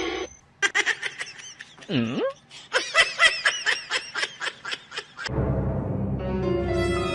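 A run of quick, repeated laughing bursts, about three to four a second, lasting several seconds. About five seconds in, a sustained, ominous music bed starts.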